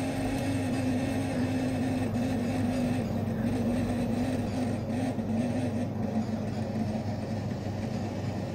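Motor of a tablet hardness tester running as it drives the anvil to compress a tablet: a steady hum whose pitch wavers slightly and settles a little lower after about six seconds.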